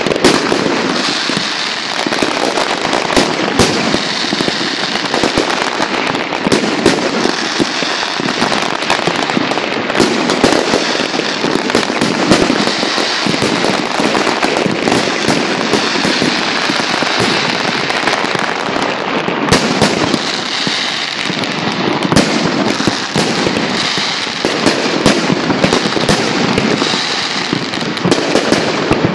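Aerial fireworks display at full intensity: a dense, unbroken barrage of shells bursting, with many overlapping bangs in quick succession.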